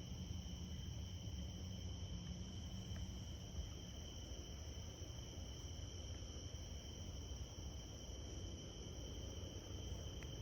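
Faint, steady high-pitched trilling of insects over a low background rumble.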